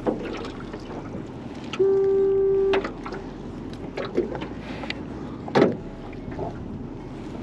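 Hollow knocks and clatters of fishing gear and a rod against the aluminum hull of a small jon boat, with a steady wash of wind and water underneath; the loudest knock comes a little past halfway. About two seconds in, a steady single-pitched beep sounds for about a second.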